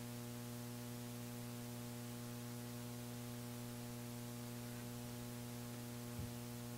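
Steady electrical mains hum with a ladder of overtones over a light hiss, and a faint low thump near the end.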